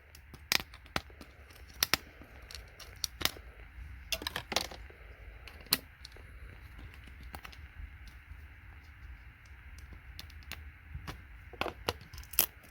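Irregular sharp clicks and clinks of computer circuit boards and small metal parts being handled and taken apart by hand, over a low steady hum.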